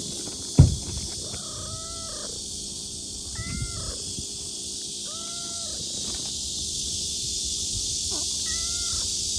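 A kitten meowing four times, short high calls spaced a second or more apart, with one sharp thump about half a second in.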